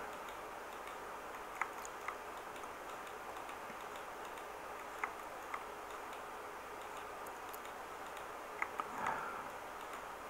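A few faint computer mouse clicks, coming in pairs about half a second apart, over steady low microphone hiss.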